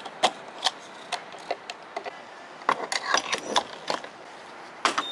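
A string of irregular, sharp mechanical clicks and knocks, bunched closely together about three seconds in, with another loud click near the end.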